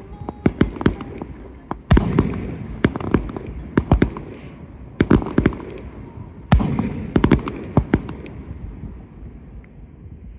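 Aerial firework shells bursting in the sky. Heavy bangs about two, five and six and a half seconds in each roll away in a low, fading rumble, and between them comes a rapid string of smaller pops.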